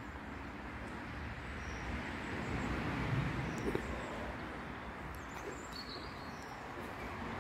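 Outdoor background noise: a steady rushing hiss that swells a little around three seconds in, with a few faint bird chirps near the end.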